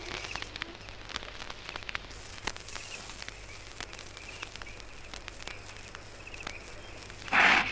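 Old vinyl record of a wildlife field recording between calls: surface crackle and scattered clicks over a low hum, with a few faint high trills. Near the end a loud animal call begins.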